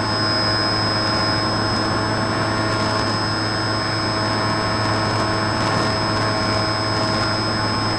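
Drifter ultralight's two-stroke engine and propeller running at a steady cruise setting in flight, an even drone that holds its pitch throughout, with a thin high whine riding over it.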